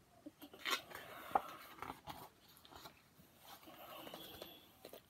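Faint rustling and crinkling of a paperback picture book's pages being handled, with scattered small clicks; the loudest rustles come about a second in.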